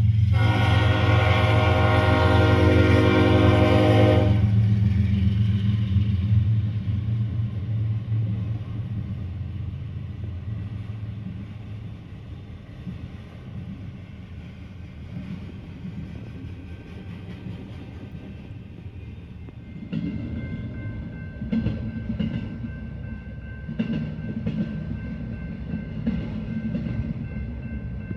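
Train passing: the locomotive horn sounds a chord until about four seconds in, over a low engine rumble that fades over the next several seconds. From about twenty seconds in come the cars rolling by, with repeated wheel clicks and a steady high squeal.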